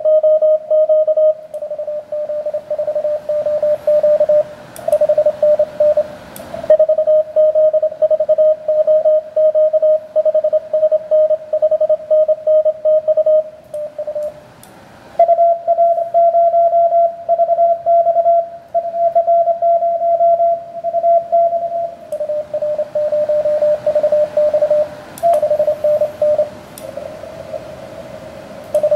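Morse code (CW) from an amateur radio transceiver on the 17-metre band: a keyed tone near 600 Hz with band hiss between the characters. For several seconds in the middle the tone is cleaner and slightly higher while the radio transmits, which is the operator's own sending sidetone in split operation.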